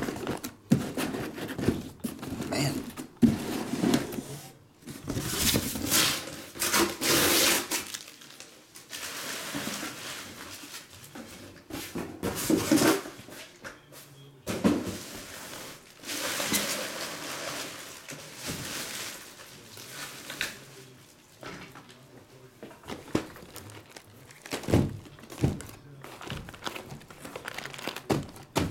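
Cardboard trading-card retail boxes being slid out of a shipping carton and stacked by hand: irregular scraping and rustling of cardboard, with dull thunks as boxes are set down and knocked square.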